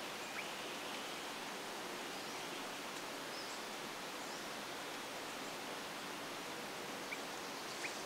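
Steady outdoor background hiss, with a few faint, short bird chirps about half a second in and twice near the end.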